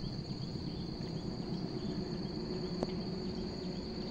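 Insects droning at one steady high pitch, with a low rumble underneath and a single faint click near the end.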